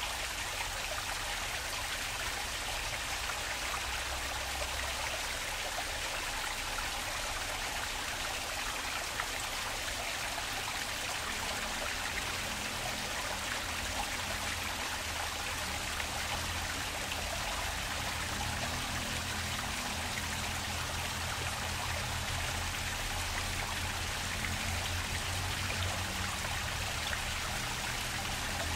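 Water of a park stream flowing steadily, a continuous rushing trickle. A low rumble comes in underneath about halfway through.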